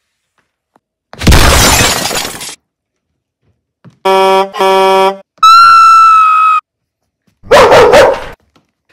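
Loud comedic sound effects dubbed over tiptoeing footsteps, one at a time: a crash-like smash, two short horn honks, a high held tone, then another crash. Each lasts about a second, with dead silence between them.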